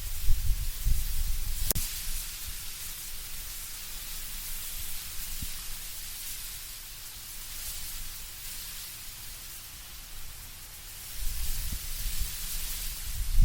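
Wind through autumn trees with leaves rustling, a steady hiss, with a low rumble of gusts swelling at the start and again near the end. One sharp click about two seconds in.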